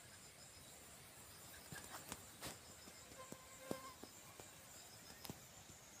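Near silence in an areca plantation, with a faint, steady, high-pitched insect drone and a few scattered soft clicks.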